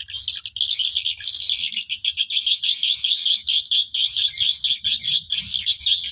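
Edible-nest swiftlet twittering: a dense, steady stream of fast, high chirps, the swiftlet calling sound used to draw birds to a swiftlet house.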